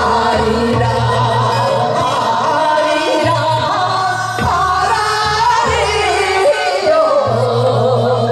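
Women's voices singing a Korean folk song together into microphones, over amplified accompaniment with a steady low beat.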